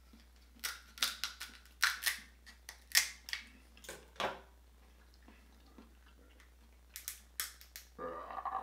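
Crab-leg shells being cut and cracked open: a quick run of sharp cracks and snaps in the first four seconds, and a few more near the end.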